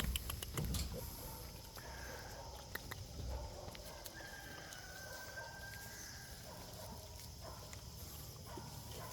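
Faint farm animal sounds, with scattered clicks and rustling in the first seconds and a thin drawn-out call about four seconds in.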